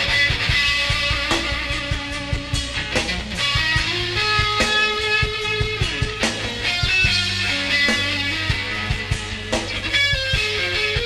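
Live rock band: an electric guitar plays held lead notes that step from pitch to pitch, over a low bass line and drums.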